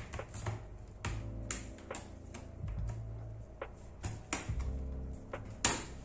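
Plastic bottom cover of an HP Victus laptop clicking and snapping as it is pried open with a card, its clips releasing in a run of irregular sharp clicks, the loudest near the end. Soft background music underneath.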